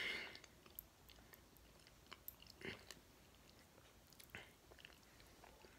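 Faint close-up sounds of a person chewing food, with small wet mouth smacks and clicks and a few brief soft bursts.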